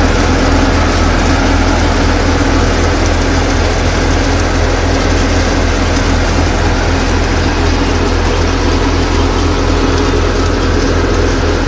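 Fiat 480 diesel tractor driving a pearl millet thresher, both running steadily: a loud, even machine drone with a strong low hum.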